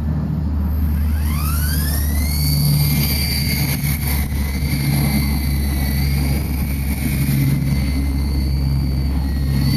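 Radio-controlled helicopter in flight: a high whine from its motor and drive rises in pitch over about a second, then holds steady, above a steady low hum.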